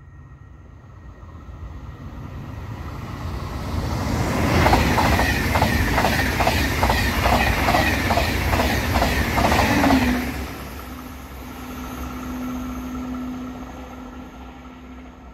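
A train passing at speed. A rumble builds for a few seconds, then comes a loud rhythmic clatter of wheels on the rails, about two to three beats a second, for some five seconds. It recedes into a fading steady hum.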